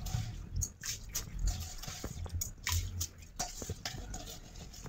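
Water dripping and splashing in a steel bowl, with short light clinks of metal, as wet rice is handled.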